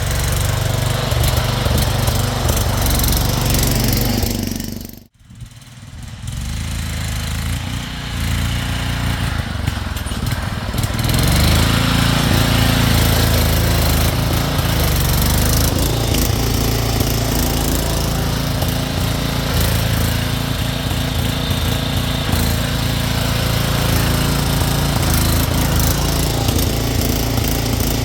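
Small engine of a 2011 Craftsman garden tractor running steadily as it drives. The sound drops out for an instant about five seconds in, comes back quieter, and runs loud again from about eleven seconds on.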